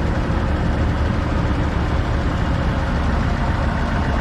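Heavy diesel engine running at a steady speed, an even low drone with no change in pitch.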